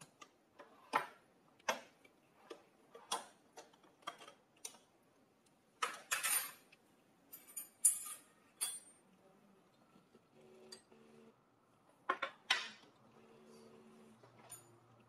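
Irregular clinks and taps of tableware, dishes and cutlery set down and knocked together on a table, some ringing briefly. A lull of several seconds falls in the middle, then a quick cluster of clinks near the end.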